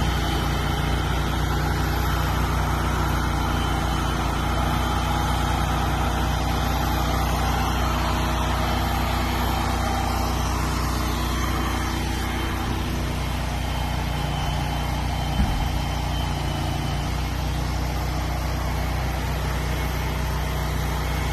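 Truck engine running steadily at idle, with a single short knock about three quarters of the way through.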